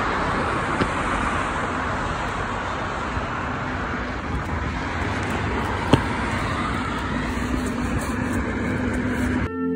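Steady road traffic noise: cars running on the road alongside, heard as an even roar of tyres and engines, with one sharp click about six seconds in.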